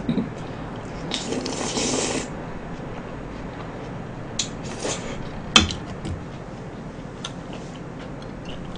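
Close-up eating of bingsu shaved ice: a wooden spoon clicking and scraping against plastic cups, and the mouthful of ice being eaten. There is a noisy rustling burst about a second in, then scattered sharp clicks, the loudest about five and a half seconds in.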